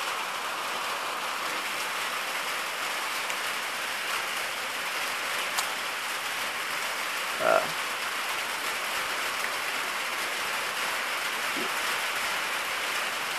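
Steady rain falling at night during a storm, an even hiss, with one brief faint pitched sound about halfway through.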